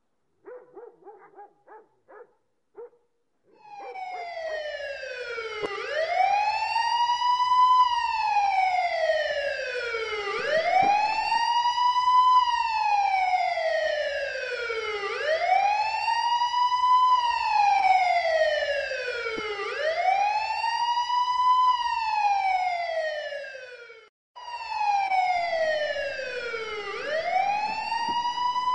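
Siren wailing in a slow rise and fall, each cycle a quick climb and a longer slide down, repeating about every four and a half seconds. It follows a few faint short tones and cuts out briefly near the end before starting again.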